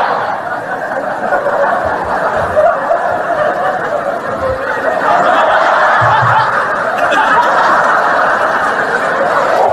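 A large audience laughing together in a continuous wash of laughter that swells again about five seconds in.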